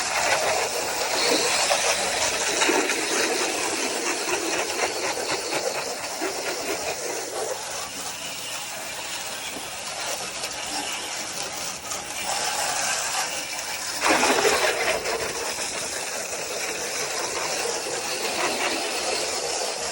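Pressure washer spraying water across a pickup truck bed: a steady hiss of spray that swells and fades, and surges louder about fourteen seconds in.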